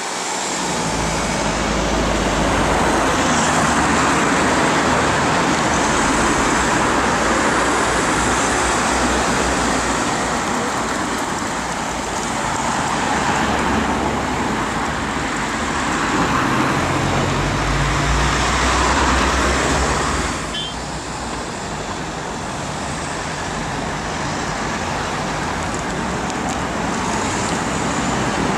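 City street traffic: cars passing with a steady rush of engine and tyre noise. The sound changes abruptly and drops in level about twenty seconds in.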